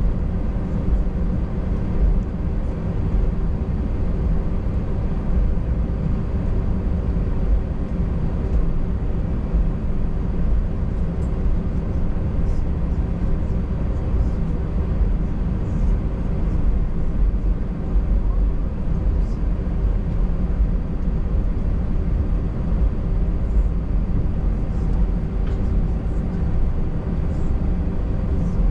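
Cabin noise of an Airbus A319 taxiing: a steady low rumble with a hum of several even tones from the jet engines, and a few faint clicks.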